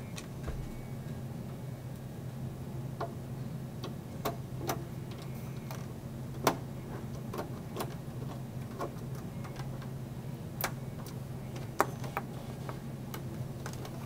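Irregular small clicks and taps of a screwdriver and hands on a desktop computer's sheet-metal case as its screws are driven back in, over a steady low hum. The sharpest clicks come about halfway through and again near the end.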